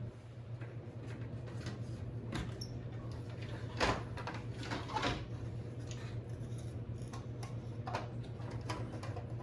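Scattered clicks and knocks of a plastic LED sign housing being handled and pried apart, the loudest about four and five seconds in, over a steady low hum.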